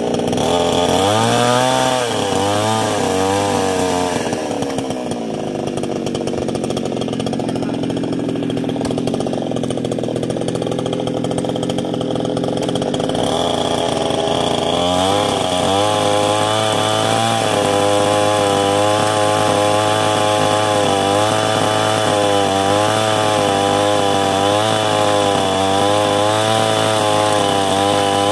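Petrol chainsaw running and cutting into a wooden log, its two-stroke engine pitch repeatedly rising and falling as it works through the wood. For several seconds in the middle it holds a steadier, lower pitch before speeding up again and resuming the rise-and-fall.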